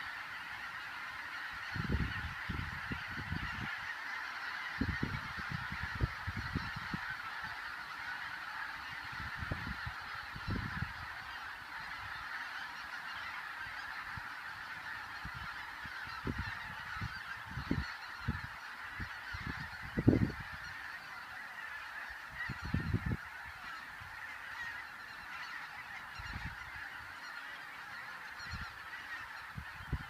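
A large flock of geese honking in a dense, unbroken clamour. Irregular short low rumbles break in now and then, the loudest about twenty seconds in.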